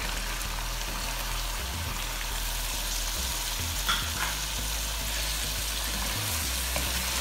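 Chicken pieces and freshly added chopped tomatoes sizzling in hot oil in a pan, stirred and scraped with a wooden spoon, with a brief clink about four seconds in.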